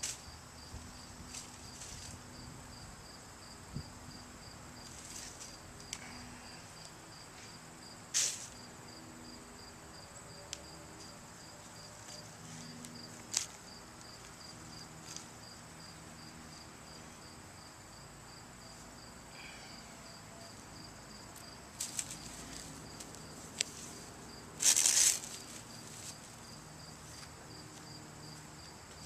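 Insects chirping steadily: a high, evenly pulsed trill over a thin steady whine. A few short rustles and snaps cut in, the loudest near the end, from dry pumpkin vines being handled.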